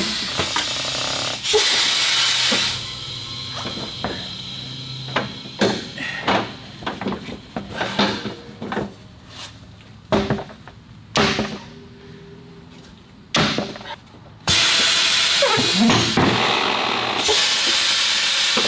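Compressed air hissing in two long stretches, one at the start and another from about two thirds of the way in, with scattered knocks and thumps in between as a tire on an alloy wheel is handled and bounced to break its bead.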